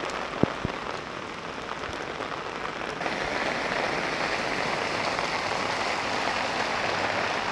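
Very heavy rain falling, a steady hiss that gets louder about three seconds in, with two short sharp taps near the start.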